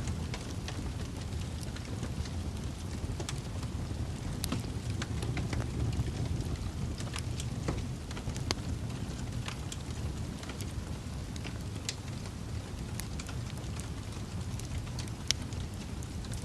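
Wood fire burning in a fireplace: a steady low roar of flames with frequent sharp crackles and pops from the logs, one pop louder than the rest near the end.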